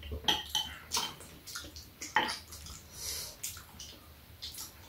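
Eating noises: a string of short, irregular mouth smacks and clicks from chewing and from spoon and chopsticks, a few every second.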